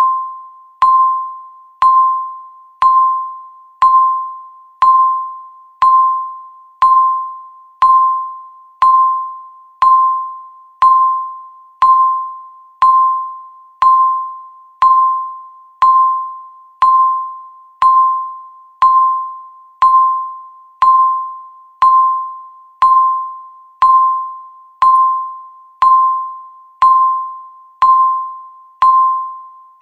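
Countdown timer beep: a single electronic tone repeating once a second, each beep starting sharply and fading away before the next.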